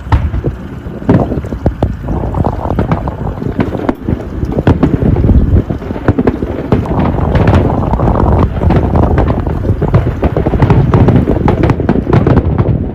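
Gusty wind buffeting the microphone aboard a moving pleasure boat, loud and uneven, with many short thumps of rumble.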